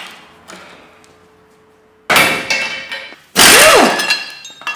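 Metal tools and parts clattering against metal: a few light clicks, then two loud clangs, about two seconds in and about three and a half seconds in, the second ringing on for a moment.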